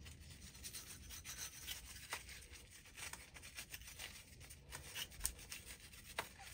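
Faint scratching and rubbing as the ignition electrodes of an oil burner's nozzle assembly are scrubbed clean by hand, with a few sharp clicks scattered through it.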